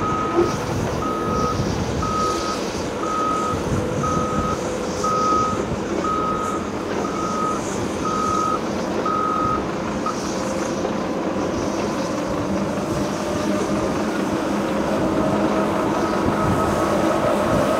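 A heavy diesel construction machine's reversing alarm beeps about once a second over its running engine, then stops about ten seconds in. The diesel engine runs on and grows louder near the end.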